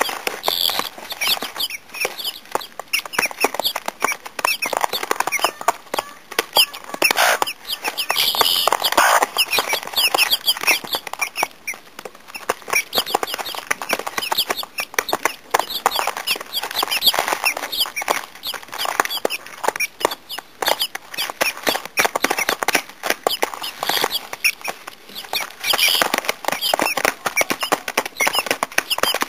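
Guinea fowl keets peeping with many short high calls while they peck grain from a hand, with a dense run of small clicks from their beaks striking the seed.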